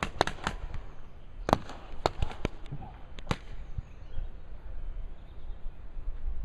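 Paintball markers firing: irregular sharp pops, several in quick succession in the first half-second, another run about a second and a half in, and a single shot a little after three seconds.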